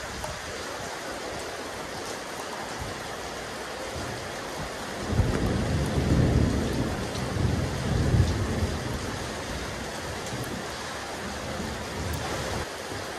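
Steady rain falling on a rooftop terrace. A low rumble of thunder swells about five seconds in and fades over a few seconds.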